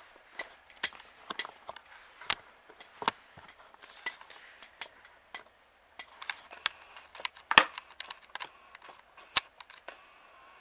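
Close-up handling noise: irregular sharp clicks and plastic crinkling, the loudest clicks about three and seven and a half seconds in.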